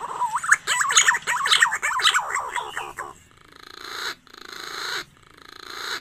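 Green pigeon (punai) call played as a lure: a quick run of warbling, whistled notes that bend up and down for about three seconds. Then come three breathy, rasping swells, each growing louder and stopping abruptly.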